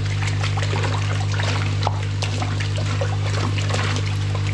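Water splashing and trickling in a plastic tub as gloved hands grab live trout out of it, with many short irregular splashes. A steady low hum runs underneath throughout.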